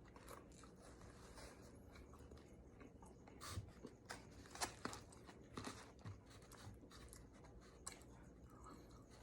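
Faint chewing of a birria taco: a few soft, scattered clicks and crunches over near silence.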